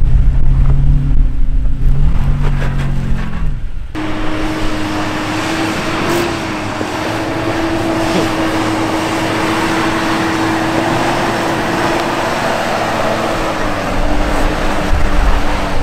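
Toyota Tacoma's engine running under load as it crawls over rock. About four seconds in it cuts off abruptly, giving way to a steady hum with an even hiss over it.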